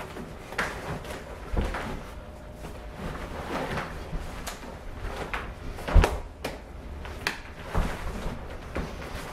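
Two people sparring at chi sau (Wing Chun sticky hands): irregular thumps and slaps from feet stepping and stamping on a wooden floor and arms and hands striking and brushing, with clothing rustling. The loudest thump comes about six seconds in.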